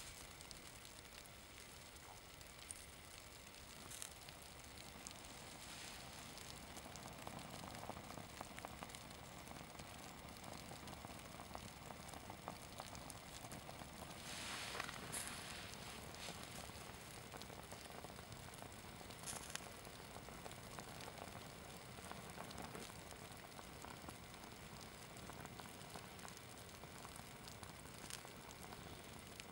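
Faint crackling and sizzling of a burning synthetic Adidas sports shirt, with scattered small pops as the fabric melts. A lighter is lit again about halfway through, giving a brief louder hiss.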